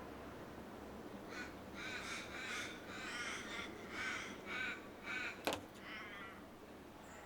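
Futura LD-140129L-WH ceiling fan running with a steady whoosh, while a bird caws about nine times in the middle, each call harsh and rasping. A sharp click sounds about five and a half seconds in.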